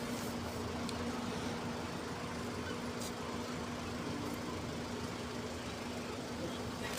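Train arriving at the station: a steady engine drone with a constant low hum, with a few faint clicks.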